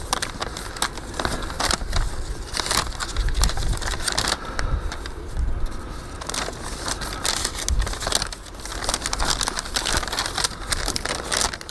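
Paper instruction sheet rustling and crinkling in the hands as it is unfolded, a string of irregular crackles, with a low rumble underneath.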